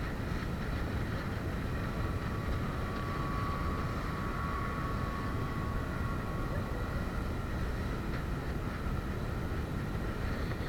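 A speedboat running at speed over open water: a steady rush of wind on the microphone over the boat's engine drone, with a faint steady whine.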